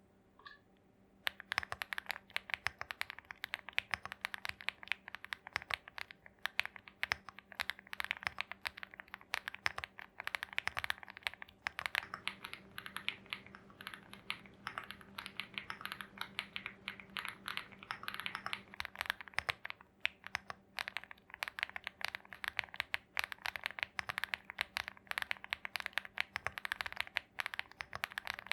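Typing on a Lucky65 mechanical keyboard with Weikav Coconut Latte switches lubed with Krytox 205G0 and Desert Heat 1.7mm keycaps: a fast, continuous run of keystrokes that starts about a second in.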